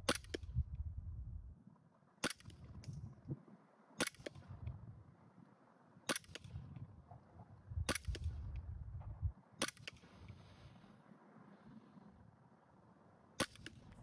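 Nuprol Raven EU17 gas blowback airsoft pistol firing single shots, seven sharp cracks about two seconds apart with a longer pause before the last. Strong wind rumbles on the microphone between shots.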